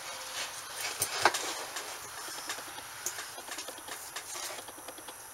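Metal knocks and clinks of the gears and axle shaft of an opened Peerless MST transaxle being handled by hand, with the sharpest knock a little over a second in, followed by a run of small clicks.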